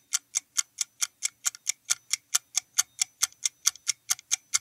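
Countdown-timer clock-ticking sound effect: evenly spaced sharp ticks, about four to five a second, marking the answer time running out.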